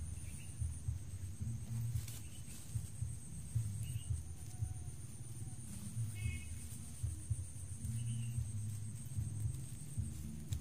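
Outdoor ambience: an uneven low rumble on the microphone under a steady, high-pitched insect trill, with a few short chirps, the clearest about six seconds in.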